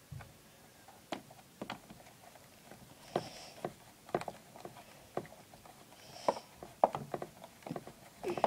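Hand screwdriver driving screws into a Roomba 650's plastic cleaning-head housing: irregular small clicks and knocks of the metal tip and the hand against the screws and plastic.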